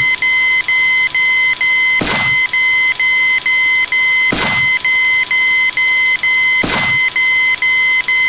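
Synthesized electronic sound effect: a steady, rapidly pulsing high beep tone, crossed four times by a falling sweep, about every two and a quarter seconds.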